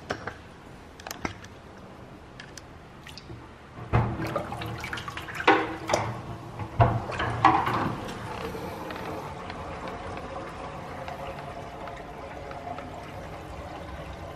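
Water running into a stainless steel kitchen sink and draining through the newly installed drain and trap during a leak test. A few loud knocks come between about four and eight seconds in, then a steady rush of water.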